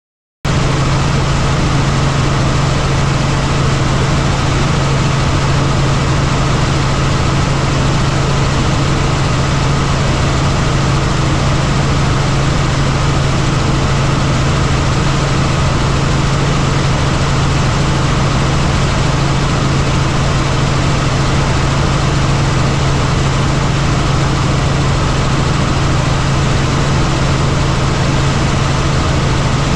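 Steady, loud cabin noise of a helicopter in flight: the engine and main rotor droning with a strong low hum. It cuts in abruptly just after the start.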